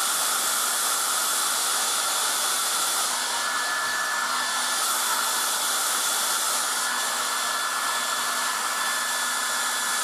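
1980s Black & Decker Stowaway travel hairdryer running steadily on its low speed, low heat setting: a constant rush of air with a thin steady whine from the fan motor.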